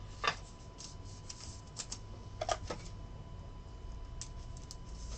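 Trading cards and their sleeves being handled: irregular light clicks and short slides of card stock, over a faint steady hum with a thin high tone.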